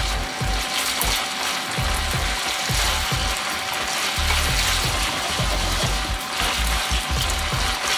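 Spaghetti, cabbage and bacon sizzling in a frying pan as they are tossed with chopsticks, with a busy, irregular clatter of chopsticks and pan over the hiss. The sizzle is the moisture being cooked off the noodles.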